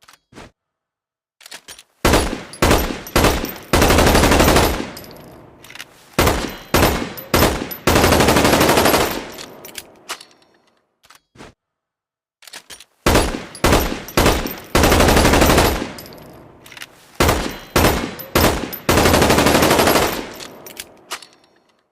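Magpul PDR-C bullpup rifle gunfire sound effect. A few quick single shots are followed by a burst of automatic fire about a second long, and the pattern comes four times. Halfway through there is a pause of a few seconds with only faint clicks.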